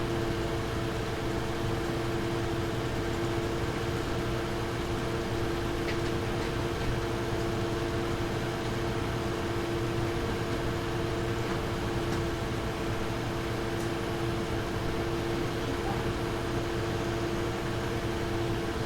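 Nvidia GeForce RTX 2070 Super graphics card fans running at a steady speed: an even whoosh of air with a constant two-note hum, neither rising nor falling.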